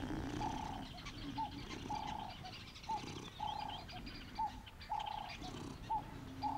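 A bird calling over and over, a longer flat note followed by a short arched note, the pair repeating about every second and a half.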